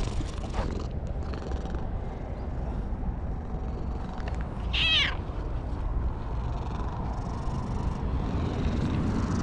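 Orange-and-white cat purring steadily close up while it is stroked, with one short falling meow about halfway through.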